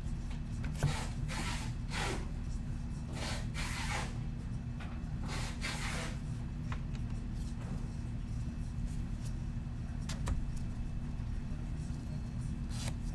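A few short rustling, sliding swishes in the first six seconds, then scattered light clicks, all over a steady low hum.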